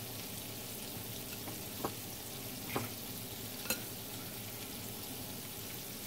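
Flour-dredged chicken drumsticks frying in hot oil in a skillet, a steady sizzle, with a few light clicks over it.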